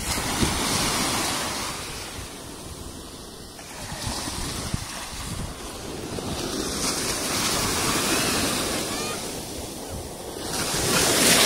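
Very small ocean waves breaking and washing up onto a sandy beach, the surf swelling and ebbing in slow surges, loudest near the end.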